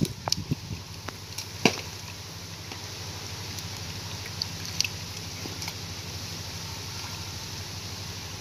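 Hands splashing and sloshing in shallow muddy water while groping for fish, with a few sharp splashes in the first two seconds and another about five seconds in, over a steady low hum.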